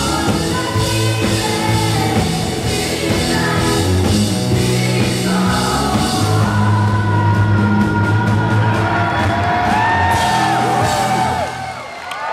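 Rock band playing live, with a young boy singing into the lead singer's microphone; from about halfway there are wavering high shouts and whoops over the band. The music stops just before the end.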